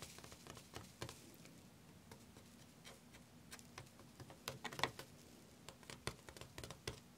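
Fingertips and nails brushing and tapping over a sand-art board, brushing off loose coloured sand: a faint, irregular patter of small scratchy ticks, thickest about four to five seconds in.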